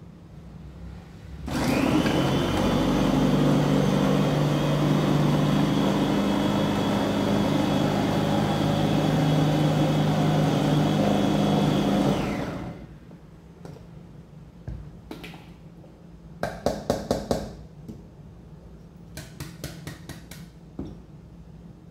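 Electric food chopper with a stainless-steel bowl running for about eleven seconds, chopping tomato and bell pepper. The motor whirs up in pitch as it starts, runs steadily, then stops. A few seconds later comes a quick run of about six short pulses, then light clicks and knocks from handling the motor head and bowl.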